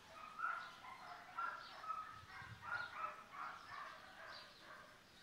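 Belgian Malinois whining in a string of short, high-pitched whimpers, about two a second: the eager whine of a dog held lying in a stay.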